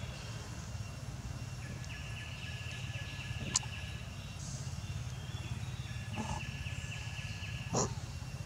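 Forest ambience: a high buzzing drone that stops and starts, over a low steady hum. A sharp click comes about a third of the way in, and a couple of brief short calls come near the end.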